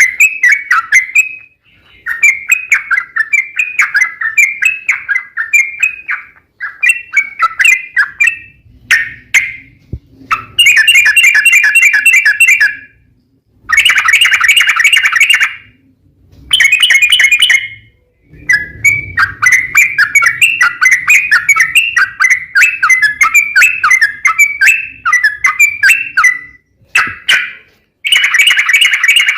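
Yellow-vented bulbul (trucukan) singing its long, rapid bubbling chatter in repeated phrases of one to four seconds, with short pauses between them.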